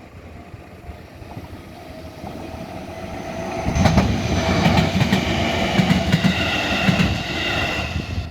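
A train passing over a railway level crossing. Its noise builds over the first few seconds and is loudest from about four seconds in, with repeated clacks of the wheels over the rail joints, before easing off near the end.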